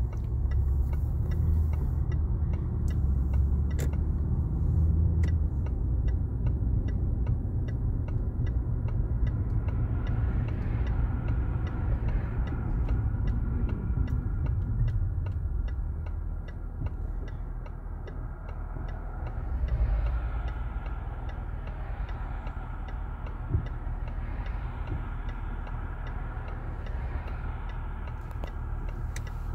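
A Jaguar's turn-signal indicator ticking in the cabin, a quick, even series of clicks, over the low rumble of the car's engine and tyres. The ticking starts a few seconds in and stops near the end.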